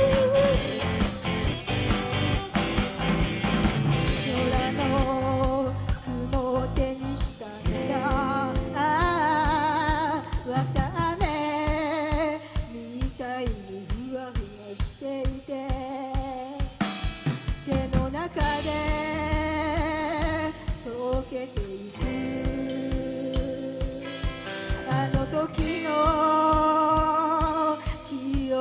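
Live rock band playing: a singer holding long wavering notes over electric guitar and bass, with the drum kit keeping a steady beat on kick and snare.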